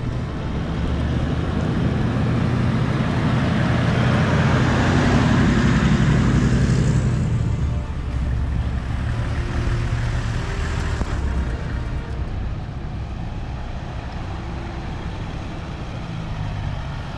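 A convoy of 4x4 off-road vehicles driving past one after another on a paved road, engine and tyre noise with a low rumble. It is loudest as a vehicle passes about five seconds in, swells again around ten seconds, then settles lower.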